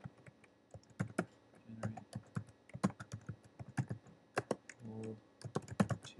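Computer keyboard typing: a run of irregular key clicks as a command is typed.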